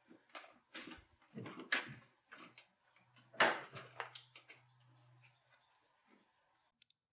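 Scattered knocks, bumps and rustling of a person climbing onto the front of a pickup truck and kneeling over the open engine bay, with the loudest knock about three and a half seconds in. A faint low hum runs for a couple of seconds after that knock.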